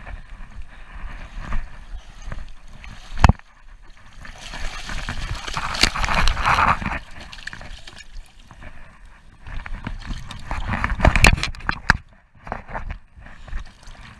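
Water splashing and sloshing close by in irregular spells, with a sharp knock a little over three seconds in and scattered smaller knocks.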